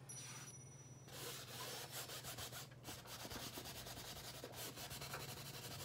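Faint, scratchy rubbing of a paintbrush scrubbing oil paint onto a stretched canvas in many short, quick strokes.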